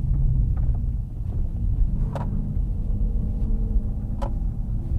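BMW car's engine and exhaust running while driving, a steady low drone with road rumble. A couple of short sharp clicks stand out over it.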